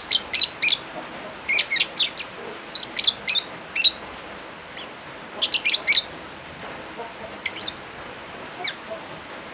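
Lovebirds chirping in quick clusters of sharp, high chirps, a fresh cluster every second or two, over a steady hiss of rain.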